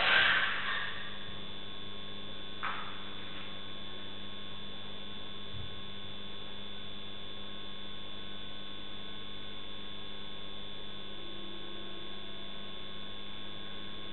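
Steady electrical hum with a constant high whine, the camera's own recording noise. In the first second a loud, noisy animal cry fades out.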